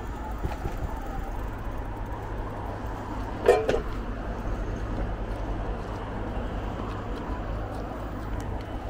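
Steady low rumble of wind on the microphone and tyres rolling while riding an electric bike. About three and a half seconds in there is one brief, loud, pitched sound.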